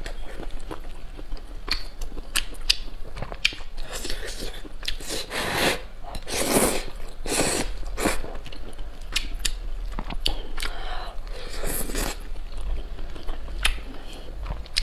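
Close-miked eating of noodles: slurping and wet chewing, with many small mouth clicks throughout and a few longer slurps around the middle and near the end.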